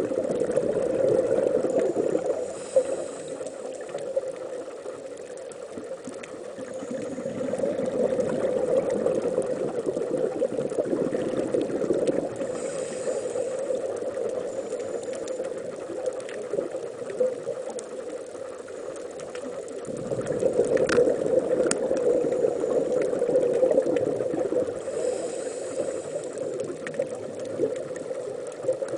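Muffled underwater water noise picked up through a camera's underwater housing: a low, rushing rumble that swells and fades every several seconds, with a few faint clicks about two-thirds of the way in.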